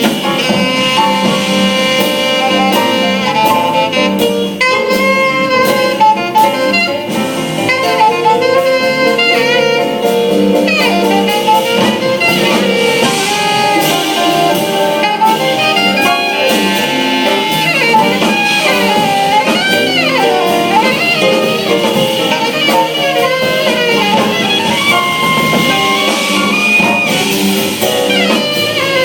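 Jazz band playing, with a saxophone taking an improvised solo in quick runs of notes over drums.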